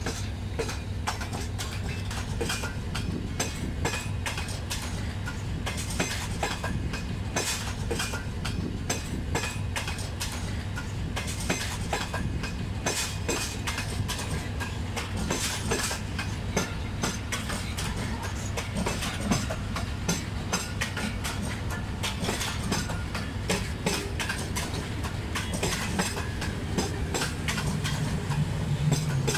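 Karakoram Express passenger coaches rolling past on the tracks, their wheels clicking over rail joints in a quick, uneven run of clicks over a steady low rumble. A low hum grows louder near the end.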